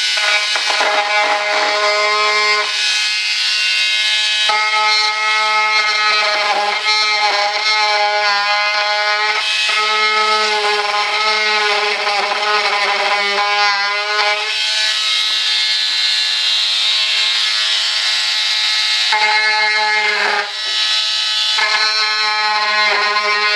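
Foam being sanded or scraped by hand, a rubbing hiss in strokes. A steady pitched squeak-like tone sounds with it in stretches of a second or two, dropping out for a few seconds around the middle.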